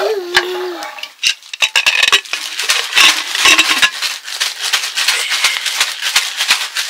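Metal cookware clattering: a ladle stirring and scraping in a pot, then the lid and handle of a pressure cooker being worked, giving a dense run of rattling clicks. A couple of short falling cries come through near the start and again midway.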